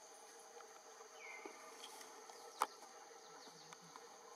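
Steady, faint drone of forest insects, with a short chirp a little after one second and a single sharp click just past halfway.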